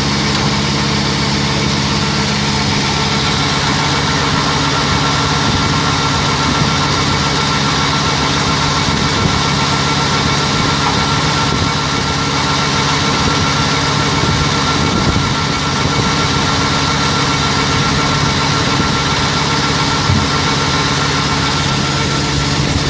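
Mobile milking system's pump running steadily while the milking equipment is being washed: a constant mechanical drone with a steady high whine.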